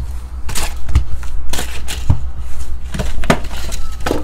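Trading card packs being taken out of an open cardboard hobby box and set down on the table: a string of irregular taps, clicks and light rustles over a steady low hum.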